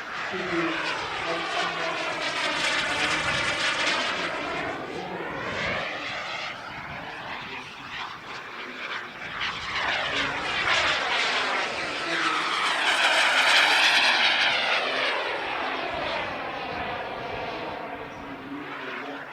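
Turbine engine of a Hangar 9 Aermacchi MB-339 RC jet in flight. Its whine sweeps down and up in pitch over and over as the model flies past, and it is loudest about two-thirds of the way through.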